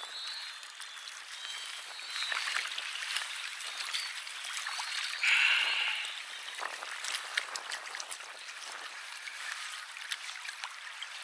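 River water lapping and trickling at the water's edge, with many small clicks and splashes and one brief louder splash-like burst about five seconds in.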